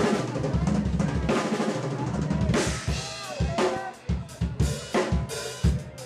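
Drum kit solo played live: a fast, dense run of drum strokes with bass drum and cymbal ringing, breaking after about four seconds into separate, widely spaced hits.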